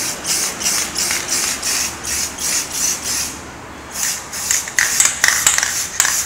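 Aerosol can of spray primer hissing in short, quick bursts, about three a second, with a brief pause about three seconds in.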